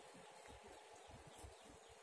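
Near silence: faint woodland ambience, with a faint run of quick, high, falling chirps, about five a second, starting about half a second in.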